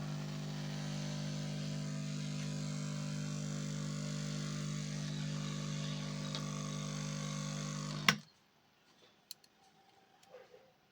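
A mains-powered workshop appliance running with a steady electrical hum and a hiss, then switched off with a sharp click about eight seconds in.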